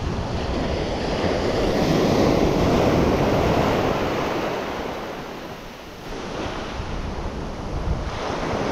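Sea surf washing up the beach, swelling and then ebbing away before the next wave comes in, with wind buffeting the microphone.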